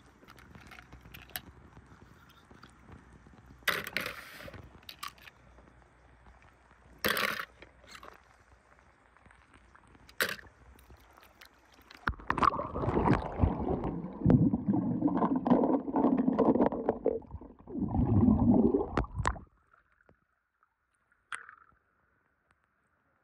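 Small die-cast toy cars clicking and scraping on a marble pool edge, then loud, muffled churning and gurgling of pool water with the microphone underwater for several seconds, cutting off suddenly.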